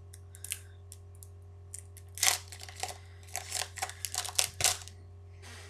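Pokémon trading cards and the booster pack's wrapper being handled at a table: a series of short, irregular rustles and crinkles, heaviest between about two and five seconds in, over a steady low hum.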